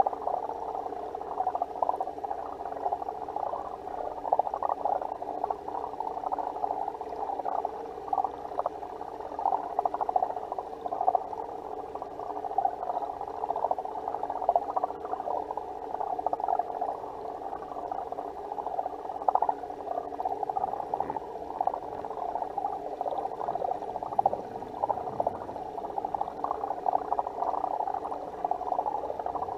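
Water moving and bubbling in a seawater aquarium tank, heard underwater through the camera's housing: a steady, muffled rush with constant fine crackling.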